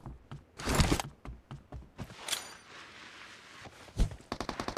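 Video game shooter sound effects: scattered noisy bursts, clicks and a sharp thump, then rapid automatic gunfire of fast, evenly spaced shots starting near the end.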